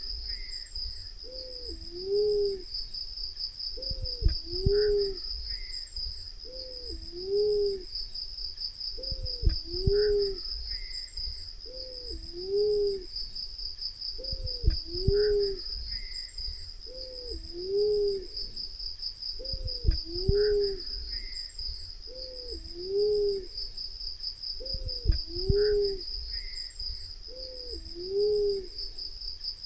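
Black-naped fruit dove cooing: a low two-note coo, a falling note then a rising-and-falling one, repeated about every two and a half seconds as a lure call. A steady high pulsing insect drone runs underneath.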